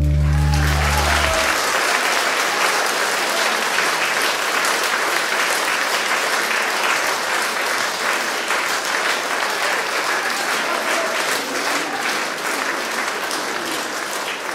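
Concert audience applauding after a song. The song's last low notes stop about a second in, leaving steady clapping that eases slightly near the end.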